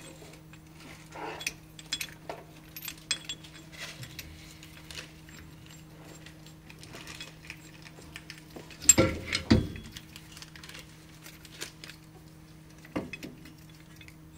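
Metal tools and brake parts being handled during a brake pad change: scattered light clinks and clicks, with a louder clatter about nine seconds in and a few more clinks near the end, over a steady low hum.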